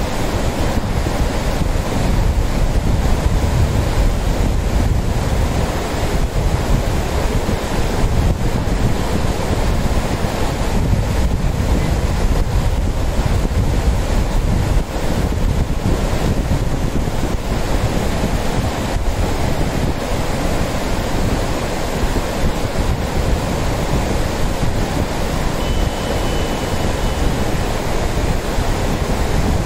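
Lidder River, a shallow mountain river, rushing over rocks in whitewater rapids: a loud, steady rush. Wind is rumbling on the microphone.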